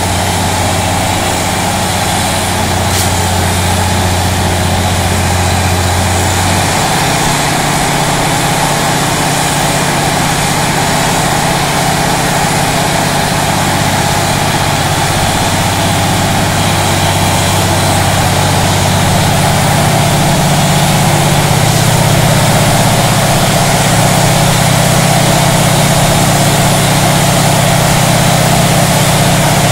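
Borewell drilling rig and its air-compressor truck running continuously, a steady diesel engine drone under the rushing noise of air and water blowing cuttings out of the bore. The engine note shifts about seven seconds in and again around twenty seconds in.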